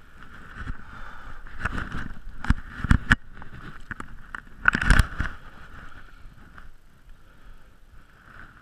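Close handling knocks and rustles of an angler working at the water's edge, several in quick succession, then a louder thump about five seconds in, over a steady faint hiss.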